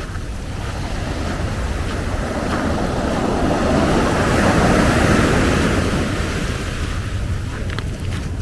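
Ocean waves breaking on the beach: the wash swells to a peak about halfway through and then fades, over a steady low rumble of wind on the microphone.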